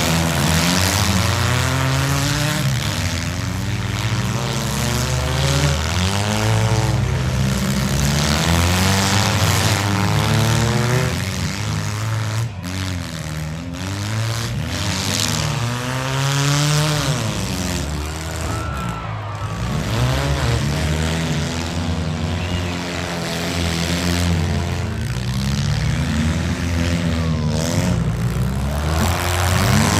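Engines of several compact demolition-derby cars running hard at once, their pitches repeatedly rising and falling as the drivers rev, back up and accelerate.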